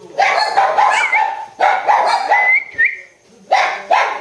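Puppy barking and whimpering in its sleep: three quick runs of barks, with a thin high whine through the first two.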